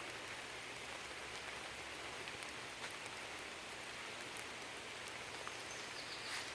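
Steady, faint hiss of water, even throughout, with a few light ticks.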